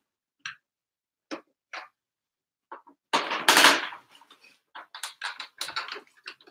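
Knocks and clatter of a portable sewing machine being lifted and set down, with a louder thump about three seconds in, then a quick run of small clicks.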